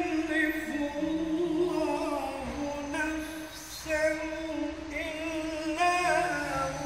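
A man reciting the Quran solo in a melodic chanting voice, with long held notes that waver and ornamented turns between them.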